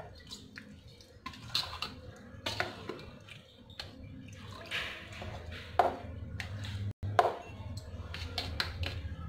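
A steel spoon beating thick semolina-and-curd batter in a bowl, with wet squelches and clinks and scrapes against the bowl, as water is poured in from a small glass partway through to thin the batter.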